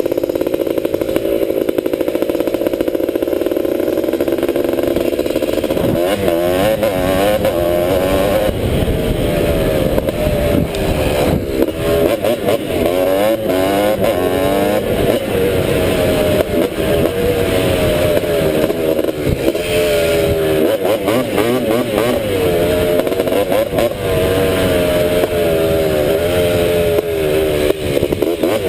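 Honda ATC250R three-wheeler's two-stroke single-cylinder engine running steadily, then from about six seconds in revved up and down again and again. It sounds healthy, making good noise.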